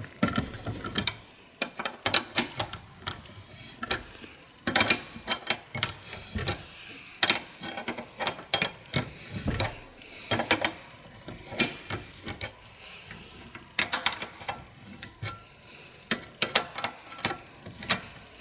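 Irregular metallic clicks and knocks of hand tools working on a bus's windscreen wiper linkage, taking off the idler.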